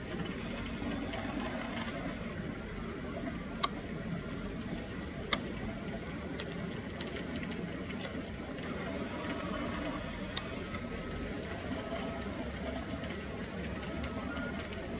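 Steady outdoor background rumble and hiss, broken by three sharp clicks: two a few seconds in, about two seconds apart, and one about ten seconds in.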